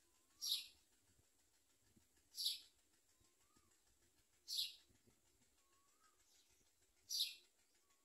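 Common myna nestlings giving short, hissy begging calls, four in all, spaced about two seconds apart. A faint short whistle that rises and falls sounds a few times between them.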